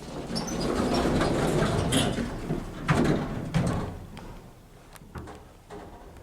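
Old Otis lift's doors sliding along their track, with sharp clunks about two and three seconds in, then dying away.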